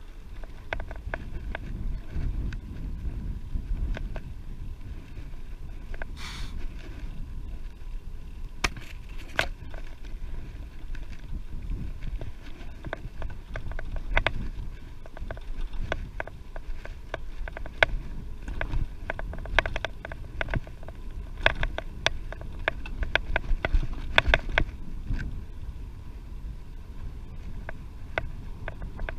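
Wind buffeting the microphone of a camera riding along on a bicycle: a steady low rumble, with irregular sharp clicks and rattles throughout that are busiest and loudest in the second half.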